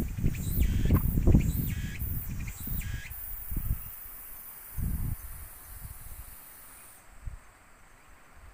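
A cicada calling: a repeated high phrase for about three seconds, then a steady high buzz that cuts off near the end. Low buffeting on the microphone is loudest in the first few seconds.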